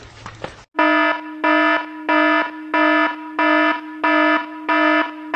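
Alarm buzzer sound effect: a loud beep of one steady pitch repeating about three times every two seconds, starting under a second in.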